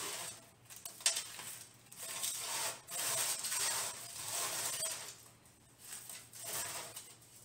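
Rustling and scraping of a plastic zip bag, aluminium foil and dry roasted sunflower seeds as gloved hands gather the seeds off a foil-lined baking pan into the bag, in several uneven stretches with a sharp click about a second in.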